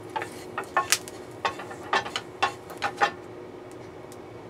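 Wooden spatula scraping across an oiled non-stick frying pan, about ten short strokes in quick succession that stop about three seconds in.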